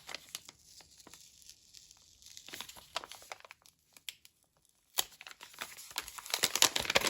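Packaging crinkling and rustling as a small sticker-kit package is handled and opened by hand: light scattered crinkles, a quiet stretch past the middle, a sharp click about five seconds in, then louder, busier crinkling near the end.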